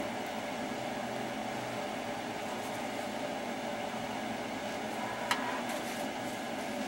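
Steady machine hum and hiss like a running fan, with a single faint click about five seconds in.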